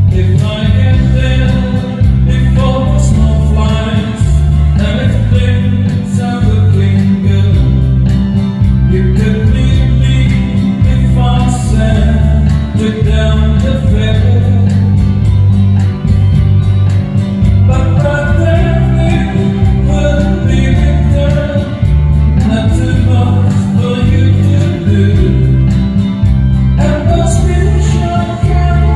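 A song with singing over guitar accompaniment and a steady bass beat.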